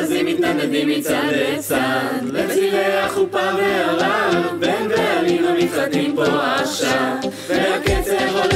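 A song sung in Hebrew by several voices in a cappella style, with little instrumental backing; a deep bass comes in near the end.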